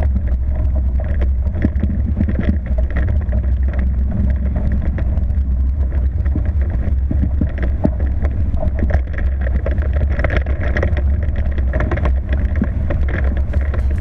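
Hobie 20 catamaran at speed: water rushing and spraying along the hulls, with many short slaps, over a loud steady low rumble.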